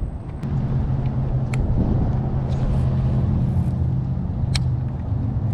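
An engine running steadily with a low hum, with a couple of sharp clicks.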